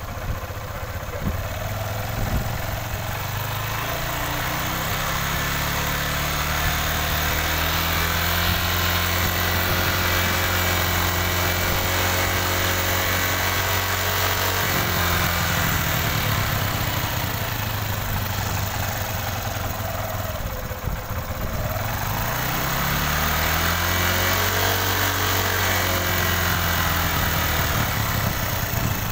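Honda Dream Yuga's 110 cc single-cylinder four-stroke engine idling while its carburettor is set for mileage. The idle speed climbs over the first several seconds and holds, sinks around the middle with a brief dip, then climbs back and holds steady.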